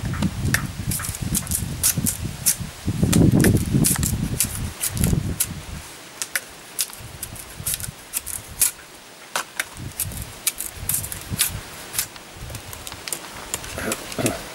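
Machete blade cutting and peeling the rind off a stalk of sugar cane: a run of sharp, irregular clicks and snaps. A low rumble sits under the first six seconds or so, then drops away.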